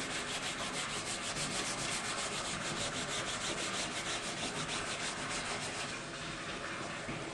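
Hard scouring side of a sponge scrubbed rapidly back and forth over a dress-shirt collar to work out collar grime: rhythmic rubbing, several strokes a second, that stops about six seconds in.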